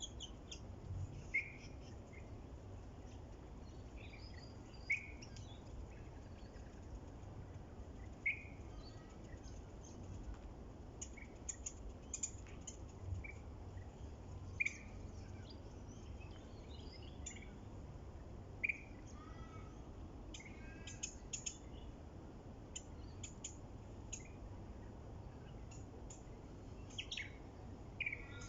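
Several birds chirping and calling over a steady low rumble of wind. One bird repeats a short, loud call every three to four seconds, and quicker high chirps from others grow busier in the second half.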